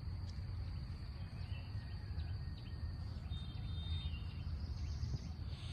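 Quiet background ambience: a steady low rumble with a thin steady high tone, and a few brief, faint bird chirps.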